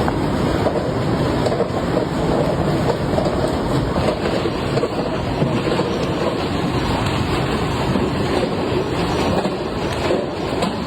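Motorized rolling steel door running, its slats clattering steadily as the curtain rolls.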